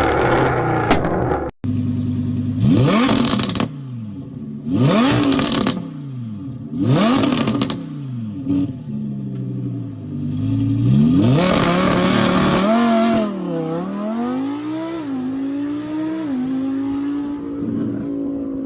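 Sports car engine revving: a loud steady high-revving run that breaks off suddenly about a second and a half in, then three quick blips from idle, each rising and falling in pitch, followed by a longer rev held for a couple of seconds with wavering pitch that settles back to a steady idle.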